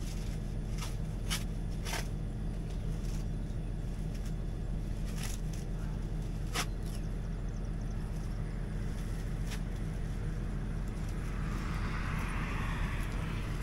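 Tractor engine idling steadily, with a few sharp clicks and knocks of hands working the baler's film wrapper. A rustling hiss starts about eleven seconds in.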